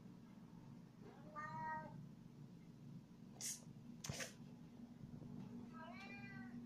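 Siamese cat meowing twice, once about a second in and again near the end, each cry arching up and down in pitch. Just past the middle come two short hissy bursts, the second the loudest sound, over a steady low hum.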